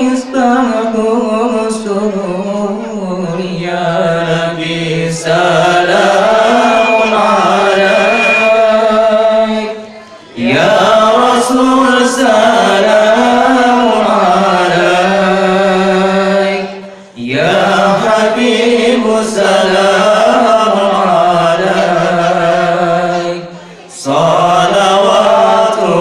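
A man chanting a shalawat, a devotional song in praise of the Prophet Muhammad, into a microphone over loudspeakers. He sings long, drawn-out phrases with a wavering, ornamented melody, each about seven seconds long, with three short breaks for breath. A brief thin high tone sounds about seven seconds in.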